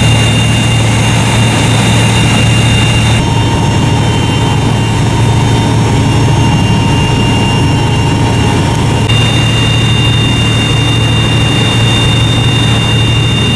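A warship under way at sea: a steady, loud low hum from the ship's engines with a rushing noise over it, shifting slightly about three and nine seconds in.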